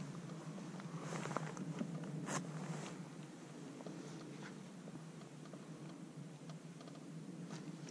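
Faint clicking and rustling of fishing tackle being handled: a fishing reel taking up slack line as a soft jerkbait is worked with rod pops, with a few sharper ticks in the first few seconds and near the end, over a steady low hum.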